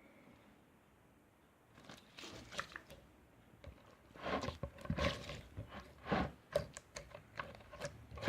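Slime being squeezed and pressed by hand, giving irregular crackling pops and clicks. It starts about two seconds in and grows louder past the middle.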